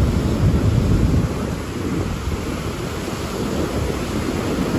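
Heavy surf breaking on a beach, with wind on the microphone: a steady low rumbling noise that eases a little in the middle.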